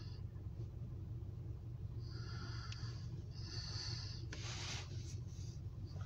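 A steady low engine hum. A ringing tone comes and goes over it about every second and a half, and there is a short hiss a little past the middle.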